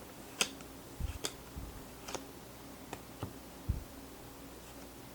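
Hockey trading cards being handled and flipped through: a scattered series of light clicks and soft taps, about eight in a few seconds.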